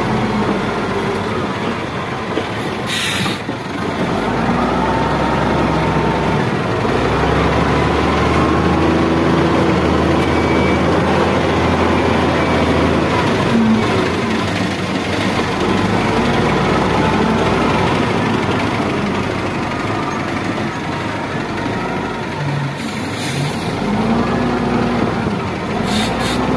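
XGMA wheel loader's diesel engine running and revving under load as the bucket is pushed into a soil pile and lifted, with rising and falling whines. Short hisses come about three seconds in and again twice near the end.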